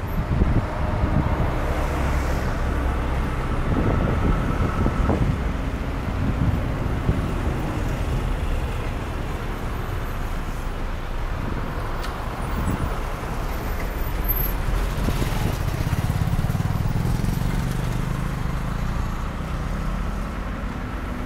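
Road traffic noise heard from a car driving along a busy road: a steady low rumble of engine and tyres, with other vehicles going by.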